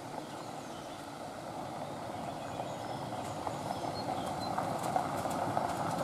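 Fiat Doblo van approaching slowly along a gravel track, its tyres crunching over the stones, growing steadily louder as it nears.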